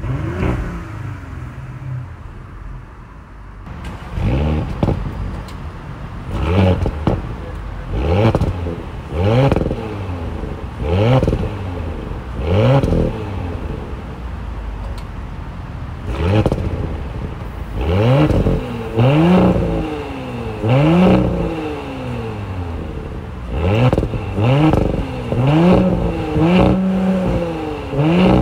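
2022 Audi SQ5 Sportback's turbocharged V6 idling, then blipped from idle over and over: more than a dozen quick revs, each sweeping up and falling back in pitch, with a steadier stretch midway and a few longer held revs near the end.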